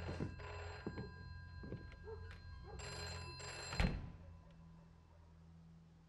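Telephone bell ringing in short double rings, one ending just after the start and the next about three seconds in, with a dull thump as the second ring ends.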